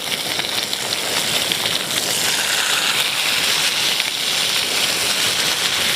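Fish shallow-frying in a pan of hot oil, a steady sizzle, as the pieces are turned over.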